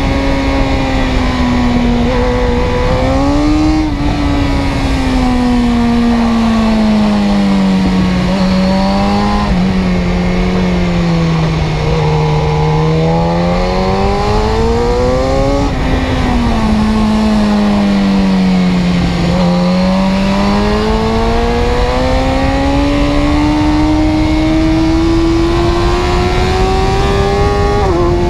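Car engine running under changing load, its pitch falling slowly through the first half, rising briefly, dipping, then climbing steadily toward the end with a small sudden drop near the end.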